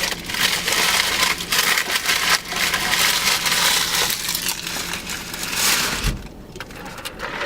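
Paper food wrappers and a paper bag being crumpled and rustled close to the microphone, with a low thump about six seconds in.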